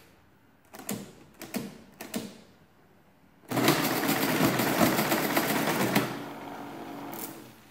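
Friden Model S10 electromechanical calculator: a few keys click down, then about 3.5 seconds in its motor-driven mechanism runs loudly for about two and a half seconds through a multiplication. It winds down into a quieter hum with a last click near the end. The run completes without sticking.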